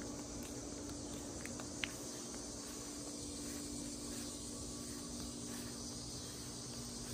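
Steady outdoor chorus of insects, an even high hiss that does not let up, over a low steady hum, with one short click about two seconds in.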